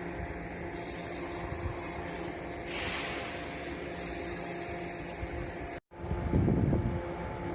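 JR Shikoku 113-series electric train's equipment running with a steady fan-like hum and whir, with a short burst of hiss about three seconds in. The sound breaks off for an instant near six seconds and comes back as a louder low rumble.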